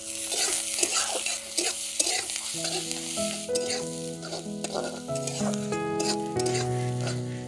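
Chopped onion and garlic sizzling in hot mustard oil in a frying pan, stirred with repeated scraping strokes of a spatula, as salt and turmeric are worked in. Background music plays underneath.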